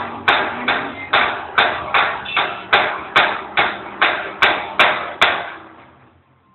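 Metal gate clanging over and over, about two and a half sharp, ringing bangs a second, as it is rocked against its frame; the banging stops a little after five seconds in.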